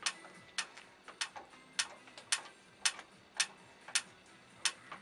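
Hand screwdriver driving a wood screw through a plunge router's base into a wooden board: evenly spaced sharp clicks, about two a second.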